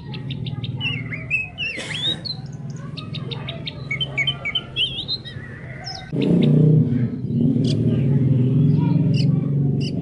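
Oriental magpie-robin singing: quick chirps and rising and falling whistled notes. Underneath runs a steady low pulsing chorus that grows louder about six seconds in.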